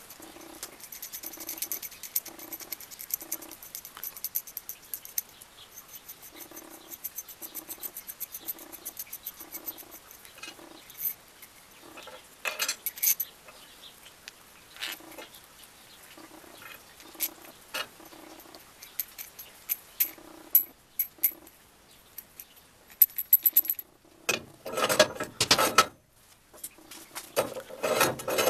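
Small metal parts clinking and clicking as washers, a spring and nuts are handled and threaded onto a threaded steel rod, with a repeating low pulsing sound in the background during the first part. Near the end, a hand file rasps on rusty steel in two spells.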